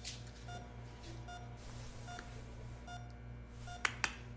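Electronic monitor beeping steadily, one short beep about every 0.8 seconds, over a low hum; two sharp clicks near the end.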